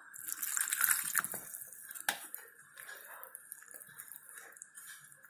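Milk poured from a glass into a glass bowl of crushed biscuit powder for about a second and a half, then a steel spoon stirring the wet crumbs, with a sharp clink against the glass bowl about two seconds in and light scraping and tapping after it.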